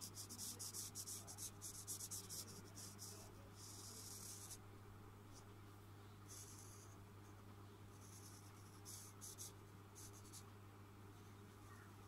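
Felt-tip marker scratching on paper in quick, faint strokes while colouring in an area: a run of strokes for the first few seconds, then shorter bursts with pauses.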